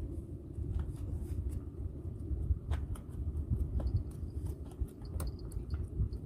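A steady low rumble with scattered light clicks. From about four seconds in, a cricket starts chirping in short, repeated high trills.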